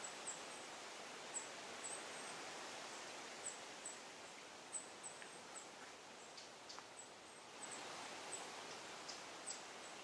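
Forest ambience: a steady rustling hiss with faint, very high-pitched short chirps repeating irregularly, one or two a second.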